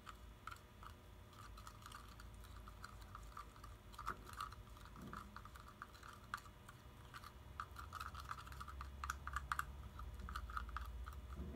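Stationery glue and a drop of sodium tetraborate being stirred in a small plastic jar to make slime: faint, quick, irregular scraping and clicking against the jar.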